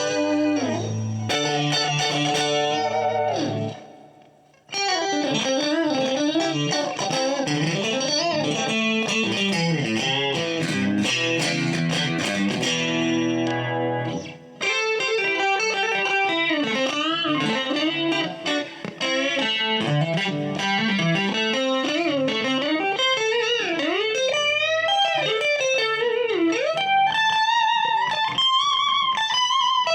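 Strat-style electric guitar with an ash body and rosewood fretboard played on a clean tone: chords ring out and fade, a short pause about four seconds in, then single-note melodic lines with string bends, climbing to higher notes near the end.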